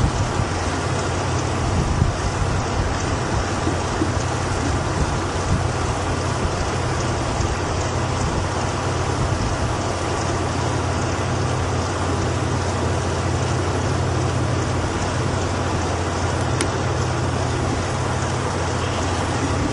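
Steady rushing wind noise on an open prairie near a tornado, with a low steady drone underneath, cutting off suddenly at the end.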